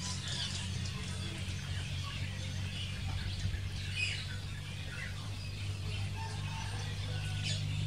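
Short, faint high chirps scattered over a steady low hum.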